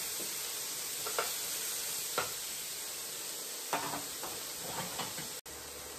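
Pieces of steak sizzling in a little olive oil in a hot nonstick pan, a steady frying hiss, with a few light knocks of dishes and utensils.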